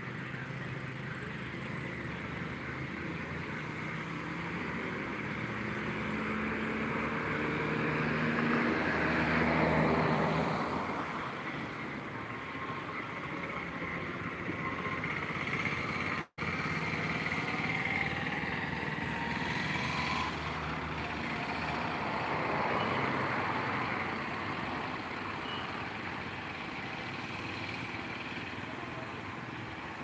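Road traffic: a vehicle's engine passes, growing louder to a peak about ten seconds in, over a steady background of traffic. The sound cuts out for an instant just past halfway.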